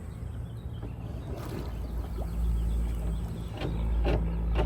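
Dockside ambience around a moored boat: a steady low rumble with a faint hum and a few short knocks or splashes, most of them near the end.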